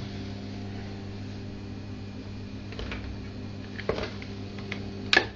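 Knocks and clatters from an old dishwasher's door and racks being handled, three short ones with the loudest near the end, over a steady electrical hum.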